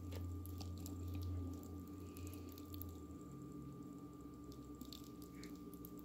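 Faint, soft squishing with scattered small clicks from sticky clumps of cooked potato pasta being handled. Under it runs a steady low hum that stops about three seconds in.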